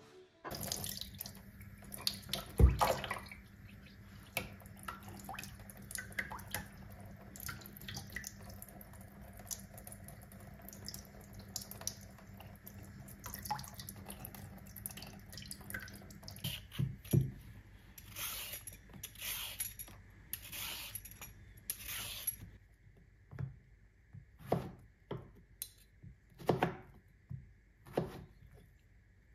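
Kitchen tap running into a sink while a mushroom is rubbed clean under the stream, with one loud knock a few seconds in. The water stops about halfway through, and near the end a chef's knife chops zucchini on a wooden cutting board, about one cut a second.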